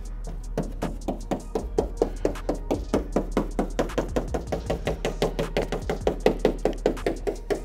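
Stiff wire brush scrubbed back and forth over paint protection film on a car bonnet, in quick even strokes of about five a second.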